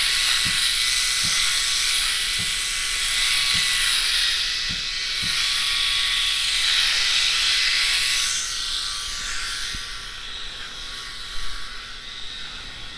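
Tiklean eight-head rotary electric shaver running with a steady high buzz as it is moved over the face and then onto the scalp; it gets quieter about eight seconds in.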